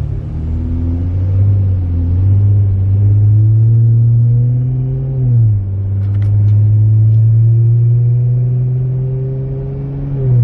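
Dodge Charger with resonator-deleted exhaust accelerating hard, heard from inside the cabin. The engine note climbs steadily, drops at an upshift about five seconds in, then climbs again and drops at another shift near the end.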